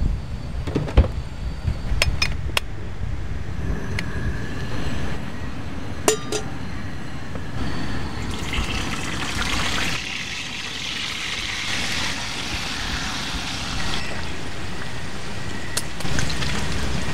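Wind buffeting the microphone with a steady low rumble, with a few light sharp clinks in the first six seconds and a few seconds of hissing in the middle.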